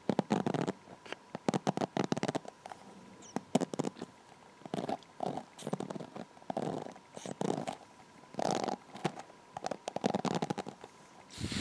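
Hair being brushed and handled close to the microphone: irregular crackly strokes, roughly one a second, with small clicks.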